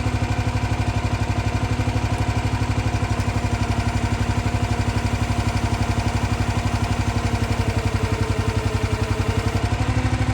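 The gasoline engine of a log splitter running at a steady speed, with an even, fast low pulse. A higher steady tone comes in for a couple of seconds near the end.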